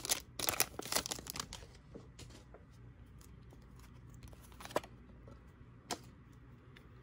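Foil Pokémon booster pack crinkling as it is torn open and the cards are pulled out, a dense crackle for about the first second and a half. Then it goes quiet apart from two light clicks near the end as the cards are handled.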